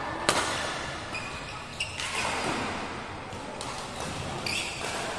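Badminton rackets striking the shuttlecock in a doubles rally: a sharp hit about a third of a second in, then several lighter hits. Shoes squeak on the court floor between the shots.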